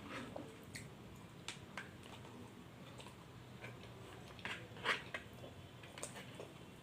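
Eating sounds from a mukbang of crispy fried chicken with sambal geprek: a scattering of short crunches, clicks and wet mouth sounds, the loudest about five seconds in.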